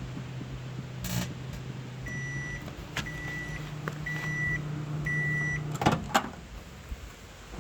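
Microwave oven running with a steady low hum, then four short high beeps about a second apart, the end-of-cycle signal. The hum stops and the door latch clicks twice as it is opened.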